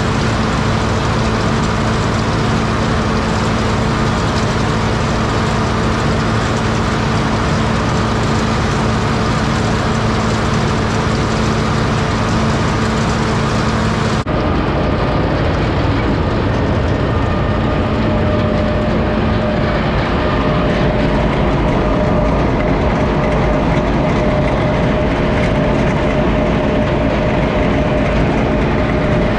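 Case 830 tractor running an 8-foot silage bagger through its PTO, loaded with chopped corn silage fed in by a chain conveyor from a self-unloading wagon: a loud, steady machinery drone with a constant hum. About halfway through the sound shifts abruptly and the hum runs higher.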